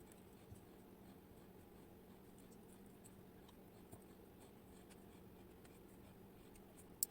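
Near silence: a faint steady hum with a few soft ticks, then a sharp click right at the end, from the small parts of a lock being handled as it is taken apart.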